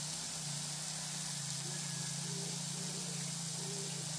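Steady low engine-like hum that keeps an even level, with an even hiss above it.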